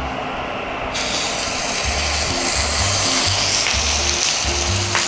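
A bacon-wrapped roll of fish sausage and minced pork is laid into a very hot frying pan and starts sizzling about a second in, with background music.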